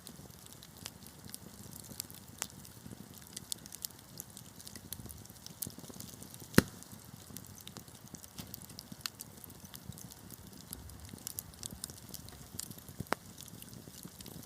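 Wood fire crackling: irregular sharp snaps and pops over a steady low rumble of the flames, with one loud pop about halfway through and another near the end.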